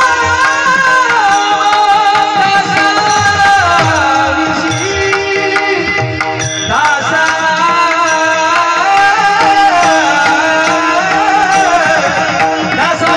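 Male devotional kirtan singing: a gliding, ornamented melody over a steady held drone note, accompanied by tabla.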